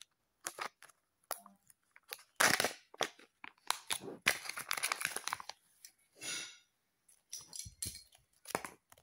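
Kinder Joy egg's wrapper crinkling and tearing by hand in irregular crackling bursts, densest for a few seconds in the middle.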